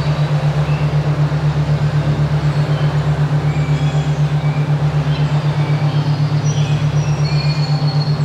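A loud, steady low hum throbbing evenly about six times a second: a binaural-beat tone. Birds chirp faintly over it.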